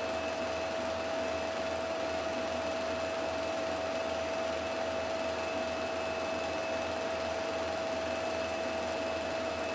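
Film projector running: a steady whir of motor, fan and film mechanism, with a constant high-pitched hum over it and a faint rapid flutter underneath.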